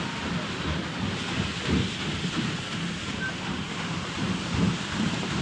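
Steady rushing water noise with irregular low rumbling underneath, like a heavy storm or surf.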